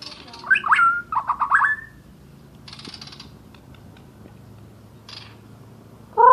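A murai songbird singing a loud phrase of quick, whistled notes that sweep upward, in the first two seconds. Two brief raspy, hiss-like sounds follow later.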